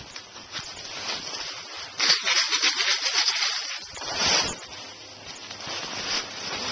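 Capped plastic bottle of vinegar, baking soda and BBs being shaken by hand, its contents sloshing and rattling in uneven bursts of hissy noise, loudest about two seconds in and again about four seconds in.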